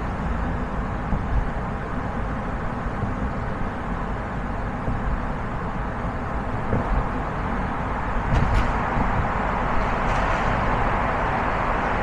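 Car driving on a city street: steady tyre and road noise over a low rumble, growing louder about two-thirds of the way through. Two brief clicks come just past eight seconds in.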